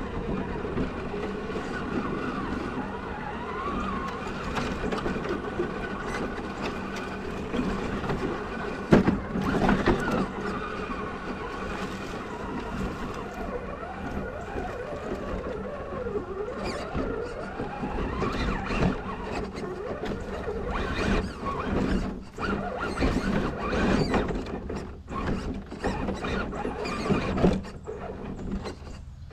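Element Enduro Trailrunner scale RC crawler's electric motor and gears whining, close up on board, the pitch wavering up and down as the throttle changes. Scattered knocks and clicks as the truck crawls over the trail, a strong one about nine seconds in and more near the end.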